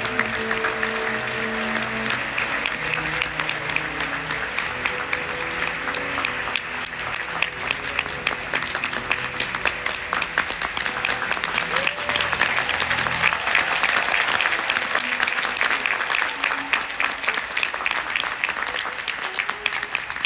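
Theatre audience applauding steadily with music playing underneath, the clapping growing louder about halfway through.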